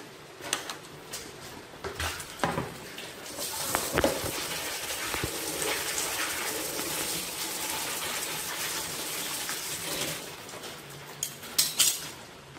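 Peanuts being washed by hand in a metal colander in a plastic basin. The colander clinks a few times, then water rushes and sloshes steadily for several seconds, and more sharp metal clinks come near the end as the colander is lifted out.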